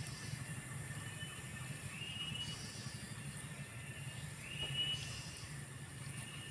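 Cicadas buzzing steadily at a high pitch, with a short rising call repeating about every two and a half seconds and a low steady hum underneath.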